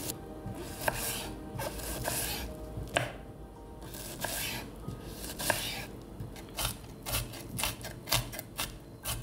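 Kitchen knife chopping a red onion on a wooden cutting board: spaced slicing strokes, then quicker, even taps of about three or four a second from about six and a half seconds in as the pieces are chopped fine.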